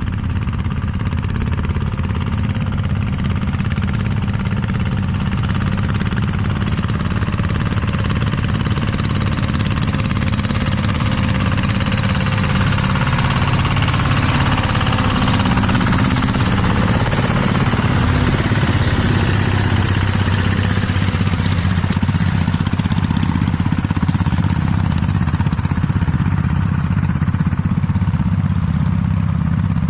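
An engine running steadily, its note shifting a little about midway before settling again.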